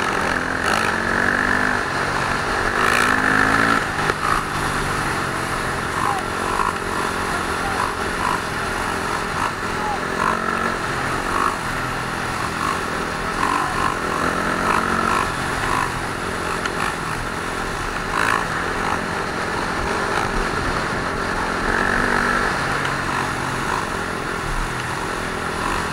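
Motorcycle engines running and revving, with people's voices mixed in.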